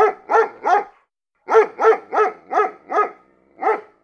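A dog barking in quick, even runs of about three barks a second, breaking off briefly about a second in.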